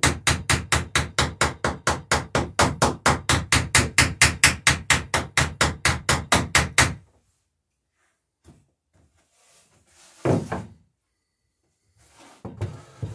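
Small hammer rapidly peening copper rivets on the lapped planking of a wooden dory, about five light blows a second. The hammering stops about seven seconds in, and a single knock follows a few seconds later.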